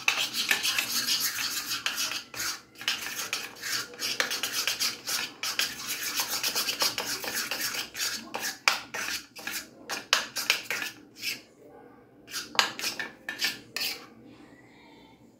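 Metal spoon stirring mayonnaise in a small ceramic bowl: rapid, repeated scraping and clinking against the bowl, which stops near the end.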